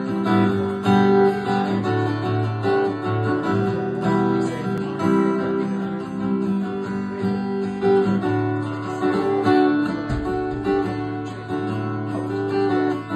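Acoustic guitar strummed, playing a run of changing chords as a song's instrumental introduction.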